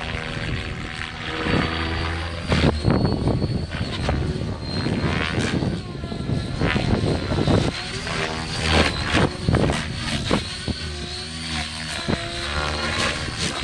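Electric RC helicopter in flight, its motor and rotor giving a steady high whine that wavers slightly, with gusts of wind repeatedly buffeting the microphone.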